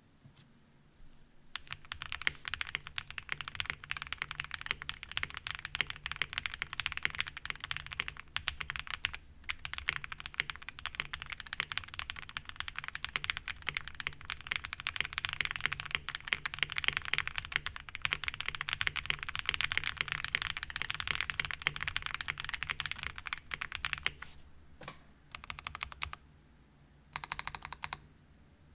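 Fast, continuous typing on a Zoom TKL mechanical keyboard with an FR4 plate, full foam, NovelKeys Cream linear switches and DSS-profile keycaps. The typing starts about a second and a half in, runs densely until near the end, then thins to a few separate key presses and one short last flurry.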